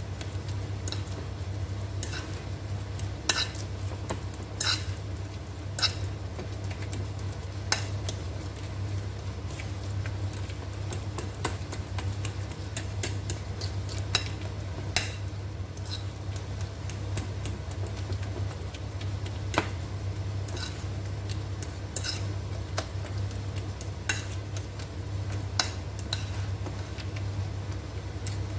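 Fork mashing ripe bananas on a ceramic plate, its tines clinking against the plate irregularly, every second or few, with soft squishing between.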